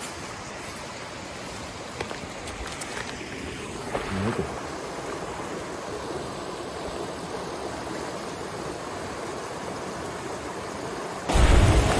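Steady rushing noise with a few faint clicks, then a sudden, much louder low rumble starting near the end.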